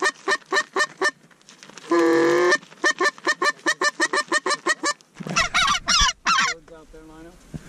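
Hand-held goose call blown in runs of short honks, about five a second, broken by one long held note about two seconds in and followed by a few wavering, clucking notes between five and six and a half seconds in.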